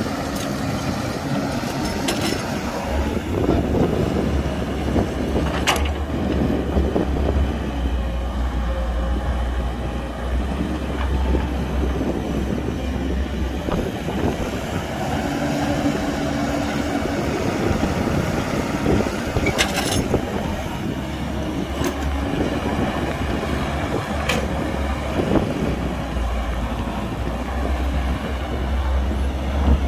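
Excavator's diesel engine and hydraulics running while digging and loading dirt, a steady low rumble that grows heavier for long stretches as the machine works under load. Several sharp knocks sound through it.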